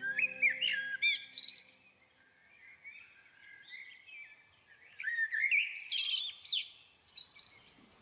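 Small songbirds chirping and twittering: rapid, quick up-and-down call notes in two busy bursts, one at the start and another about five seconds in, with quieter calls between.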